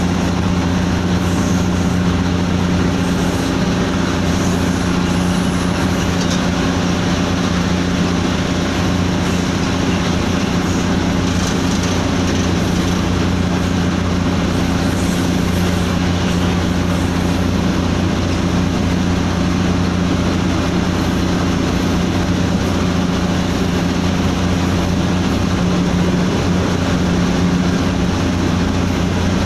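Diesel locomotive running steadily under way, heard from inside the driver's cab: a constant low engine drone over the rumble of the train moving along the track.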